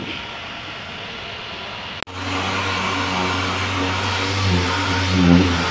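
Orbital sander running steadily against a plastic car bumper, feather-edging the plastic-welded repair with 80-grit paper: a steady motor hum with sanding hiss. It starts abruptly about two seconds in, after a quieter hiss.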